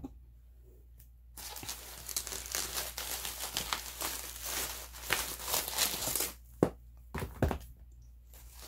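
Bubble wrap crinkling and crackling as it is pulled off the albums, starting about a second in and going for about five seconds. A few separate knocks follow near the end as albums are set down.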